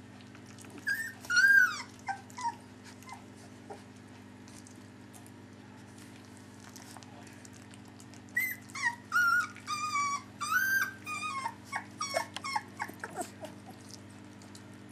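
Three-week-old Dalmatian puppies crying in short, high-pitched squeaks that bend up and down in pitch: a brief burst about a second in, then a longer run of cries from about eight seconds until shortly before the end.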